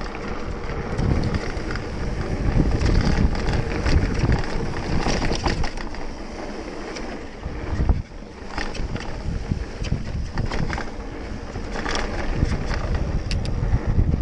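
Wind buffeting the microphone of a mountain bike's camera, with tyres rolling over a dry dirt trail and the bike rattling and knocking over bumps on a downhill run. The noise drops briefly about eight seconds in.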